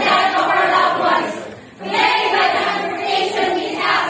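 A group of young women singing together in two phrases, with a brief pause just under two seconds in.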